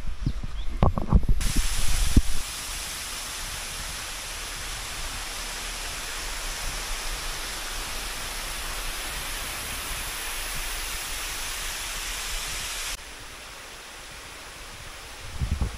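Waterfall rushing in an even, full hiss that cuts in abruptly about a second in and drops off sharply to a quieter hiss near the end. A few low thumps come at the start.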